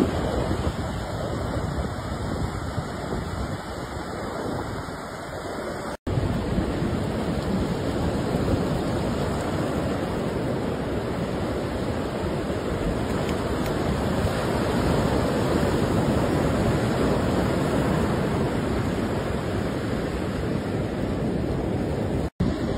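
Ocean surf breaking on a beach, with wind buffeting the microphone as a steady rushing noise. The sound drops out for an instant about six seconds in and again near the end.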